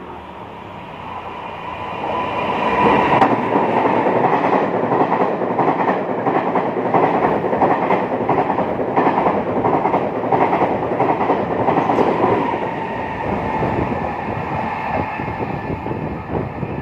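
Taiwan Railways Tze-Chiang express passing through the station at speed without stopping. Its noise builds over the first three seconds as it approaches, then holds as a loud, steady rush with the wheels clattering over the rail joints and a steady whine running through it.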